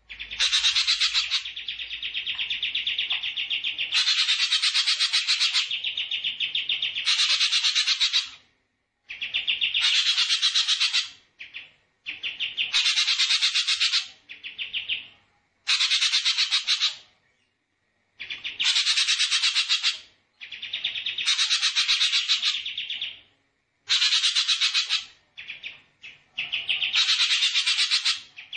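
A songbird's rapid, buzzy trilled song, delivered in phrases of one to two seconds with short pauses between them, some phrases higher and wider in pitch than others.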